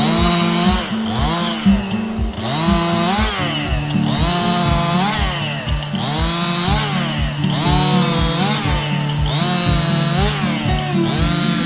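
Stihl MS261 C chainsaw revving up and down as it cuts, mixed with background music that has a steady beat.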